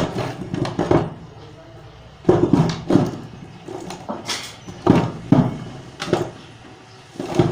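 A person's voice talking in short bursts with pauses between them.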